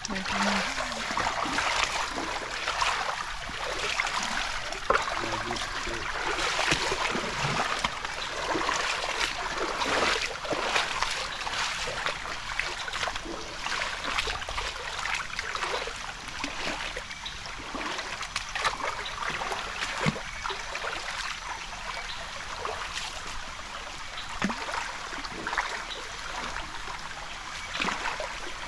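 Rushing and splashing water of a waterfall and its stream, a steady wash with irregular splashes throughout.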